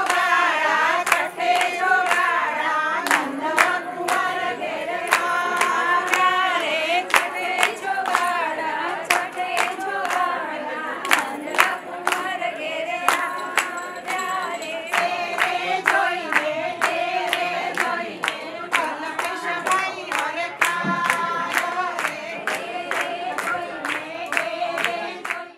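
A group of women singing a folk song together, with wavering, drawn-out vocal lines and sharp hand claps throughout.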